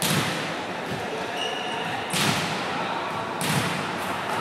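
Three hard ball impacts of a volleyball in play, about two seconds then one second apart, each echoing through the large indoor sports hall, with voices in the background.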